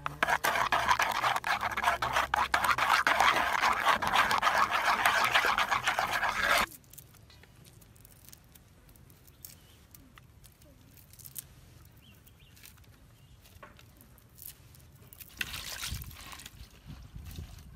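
Thick batter being stirred in a bowl: a dense run of wet slapping and clicking that stops abruptly after about six and a half seconds. Near the end, hands briefly splash through crickets in a basin of water.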